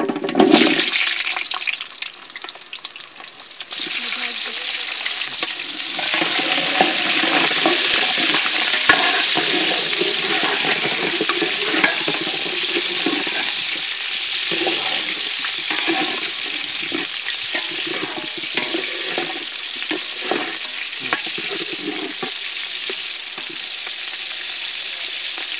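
Whole small red onions dropped into hot oil in a large metal pot, sizzling sharply as they hit, then a steady frying hiss that swells again about six seconds in. A metal spatula scrapes and knocks against the pot as the onions are stirred.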